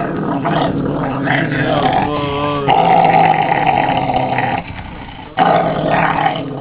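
A Cesky terrier 'talking': long, growly moaning vocalizations with a wavering pitch, a playful grumble rather than an aggressive growl. They come in two long stretches with a short break about two thirds of the way through.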